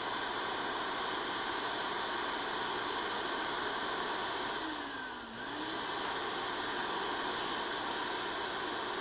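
Vacuum cleaner running steadily, sucking concrete drilling dust out of a freshly drilled anchor hole through its hose nozzle. Its level and pitch dip briefly about halfway through, then recover.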